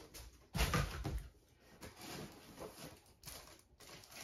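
A binder and its packaging handled while being unboxed: a knock about half a second in, then soft rustling and scraping, and a sharp click a little after three seconds.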